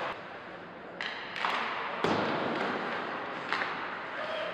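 Ice hockey game in a rink: a steady hiss of play with a few sharp knocks, the loudest about two seconds in.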